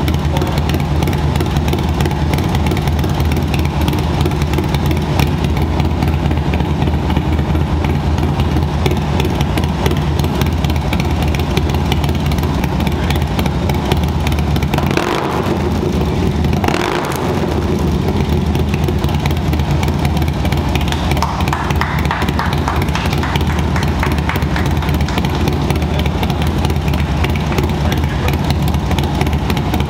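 Harley-Davidson Low Rider ST's freshly installed Screaming Eagle 131 Milwaukee-Eight V-twin idling on a shop lift, blipped twice in quick succession about halfway through, each rev rising and dropping back to idle.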